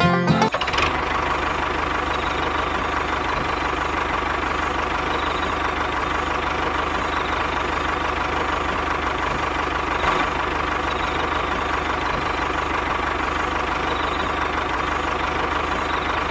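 Small electric motor and gearbox of a homemade toy tractor running steadily under drive, a constant whine over an even mechanical rattle. A few banjo notes end just as it starts.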